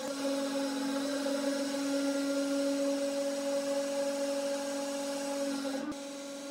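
A 300-ton hydraulic press's pump running with a steady whine while the ram drives a punch down to push a compressed cake of nuts and bolts out of the die. About six seconds in there is a click and the whine drops slightly.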